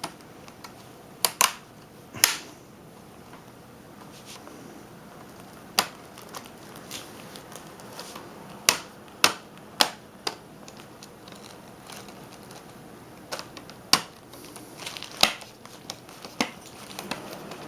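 Plastic screen bezel of a Dell Inspiron N5010 laptop being pressed onto the lid, its clips snapping into place one by one: a dozen or so sharp clicks at irregular intervals, with quiet stretches between.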